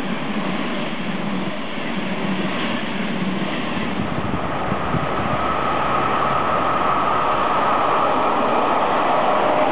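Intercity passenger coaches rolling past on the rails, then an approaching regional train hauled by a red DB electric locomotive. Its rolling noise grows louder, with a steady whine coming in about halfway through.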